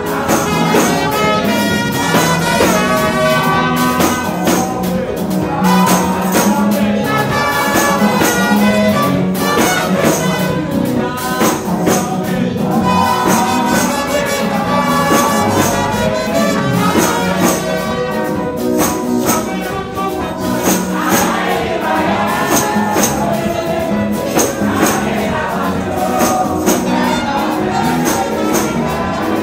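Upbeat gospel music: a tambourine keeping a steady beat under brass and singing.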